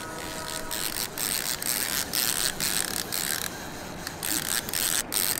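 Levelwind fishing reel clicking and whirring in uneven spurts, about twice a second, as a hooked spring chinook salmon is reeled in.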